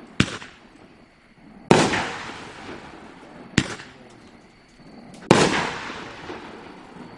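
500g firework cake firing its shots in a slow sequence: four loud bangs about one and a half to two seconds apart, the bigger ones echoing away.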